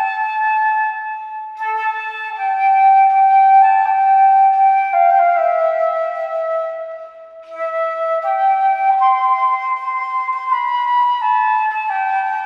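Solo flute playing a slow hymn melody in long held notes that step up and down, with a brief gap about seven seconds in.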